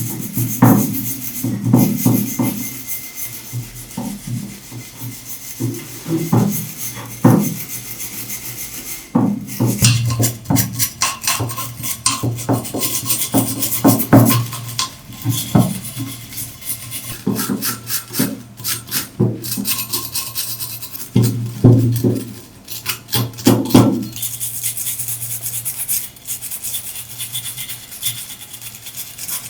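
Hand work on the copper incense pot: repeated scraping and rubbing strokes at an uneven pace, over a steady low hum.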